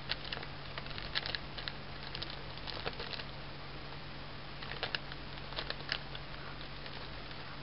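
Light crinkling and rustling of a plastic bag and blanket as a small kitten rolls on its back and bats with its paws: scattered soft crackles in short clusters.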